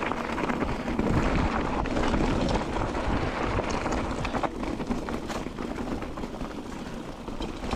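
Wind buffeting the microphone: a steady rumbling rush, heaviest in the low end, with a few faint clicks.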